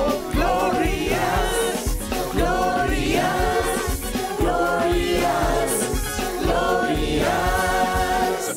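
A song sung by a group of voices like a choir, over backing music.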